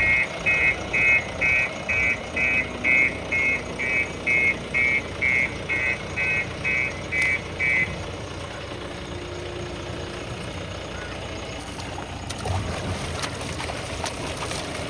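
JCB 3DX backhoe loader sounding its reversing alarm, a steady series of beeps about two a second that stops about eight seconds in, over the diesel engine running steadily throughout.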